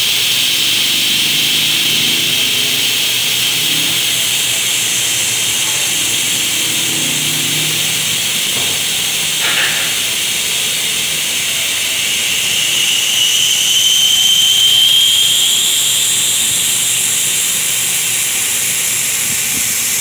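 Air hissing steadily out of a Porsche Macan's collapsible spare tire as it is let down. The hiss grows a little louder and higher about two thirds of the way through.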